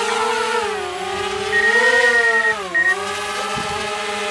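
A DJI Spark quadcopter's propellers whine as it lifts off its pad and climbs. The pitch rises, then wavers up and down as the motors change speed.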